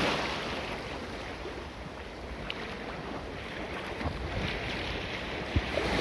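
Shallow sea surf washing and splashing close around the microphone, with wind buffeting it. Loudest at the very start, then a steady wash with a few small sharp ticks.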